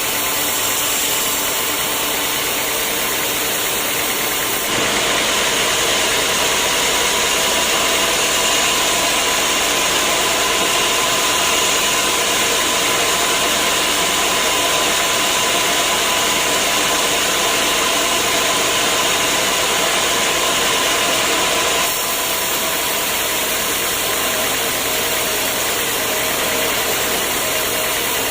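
Sawmill machinery running steadily, getting louder and brighter from about five seconds in until about twenty-two seconds in, then dropping back.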